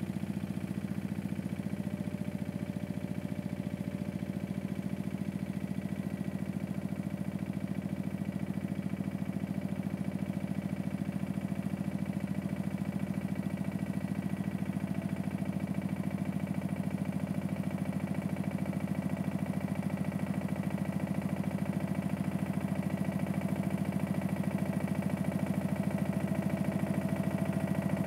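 Pasquali tractor engine running steadily while pulling a loaded manure trailer, growing slightly louder as it approaches.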